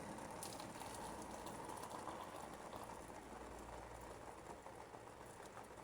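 Water boiling in an electric kettle: a steady bubbling and crackling rush that slowly dies down.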